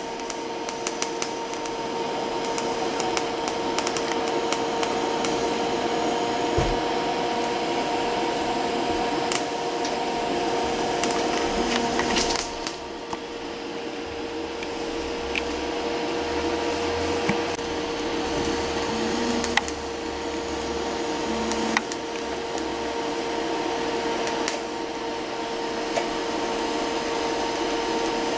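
TIG welding arc on steel, a steady hiss and hum with faint crackling ticks, as filler is added to build up a weld bead. The sound dips briefly about twelve seconds in and then carries on.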